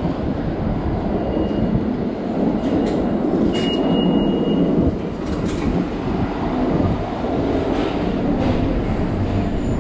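Subway train rumbling through the station, a loud steady rumble with faint clicks. About three and a half seconds in, a single high beep from the turnstile's card reader lasts about a second.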